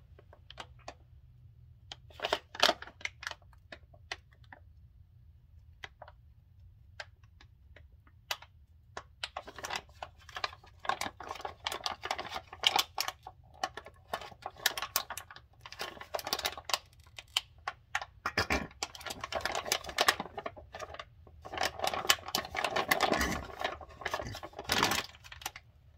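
Plastic gear-oil pouch crinkling and crackling as it is squeezed and rolled up by gloved hands to push oil into a differential's fill hole. A few scattered crackles at first, then dense crinkling from about a third of the way in until near the end.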